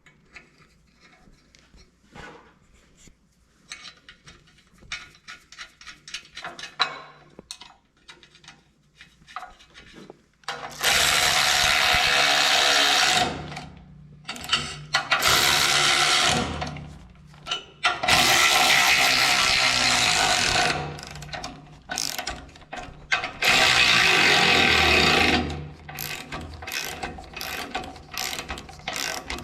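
Nuts being run down threaded rod: about ten seconds of light clicks and taps as they are started by hand, then four runs of a ratchet wrench, each two to three seconds long, tightening them.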